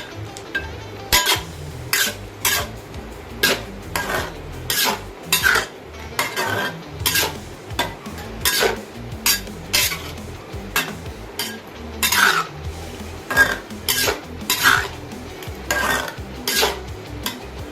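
A utensil stirring a pot of pumpkin and pak choy soup, knocking and scraping against the pot in sharp, irregular clinks about one to two a second.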